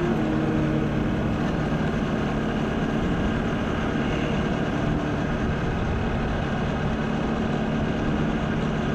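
Motorcycle engine running steadily, with an even hum and no change in pace.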